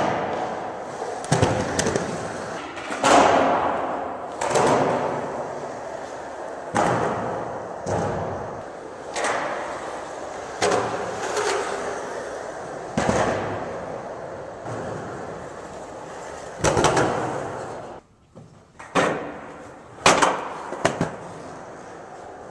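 Skateboard rolling across a hard gallery floor. A sharp clack comes every second or two, each followed by a rolling rumble that fades away. The rolling goes briefly quiet near the end, then a few more clacks follow.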